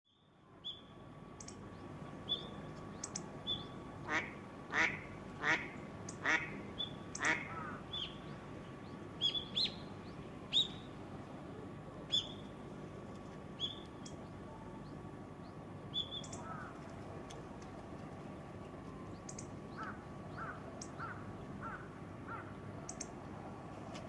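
Male hawfinch giving short, sharp "tchik" calls again and again, closer together in the first half and more spaced out later. About four seconds in, five louder, lower calls come one after another from another bird.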